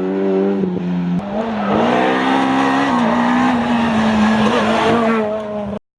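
Rally car engine running hard under load: there is a shift about a second in, then the revs climb and hold. The sound cuts off abruptly just before the end.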